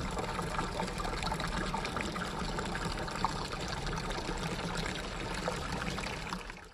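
Water from a stone fountain's spout splashing steadily into the basin, then cutting off abruptly.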